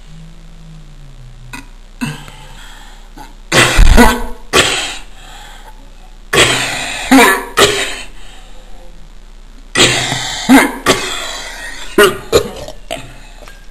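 A person coughing hard in four bouts of several harsh, hacking coughs each, the first starting about three and a half seconds in: a nasty chesty cough, "coughing my lungs out."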